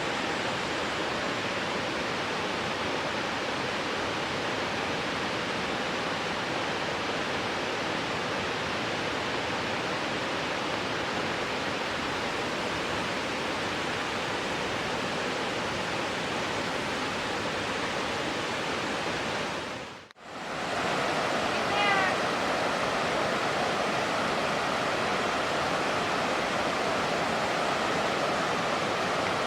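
Steady rushing of a stream. About two-thirds through it fades briefly to silence and comes back, and just after that a short run of high chirps sounds over it.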